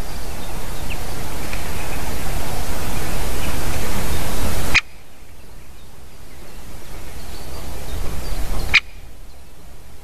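Rushing noise on the nest camera's outdoor microphone that swells over several seconds and cuts off abruptly with a click, twice: about halfway through and again near the end. A few faint short bird chirps sound over it in the first half.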